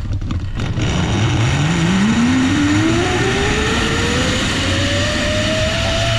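Zipline trolley pulleys running along the steel cable, with a whine that rises steadily in pitch as the rider picks up speed, over a steady low rumble.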